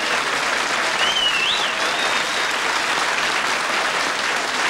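Studio audience applauding steadily, with a high whistle rising and falling above the clapping about a second in.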